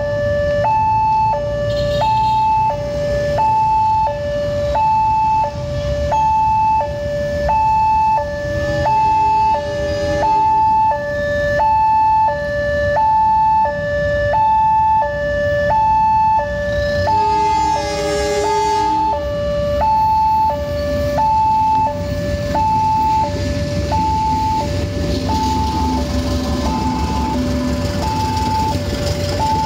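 Railway level-crossing warning alarm sounding continuously, an electronic two-tone ding-dong alternating high and low about once a second. About eighteen seconds in a short horn sounds, and from about twenty seconds the low rumble of a locomotive-hauled passenger train passing over the crossing builds under the alarm.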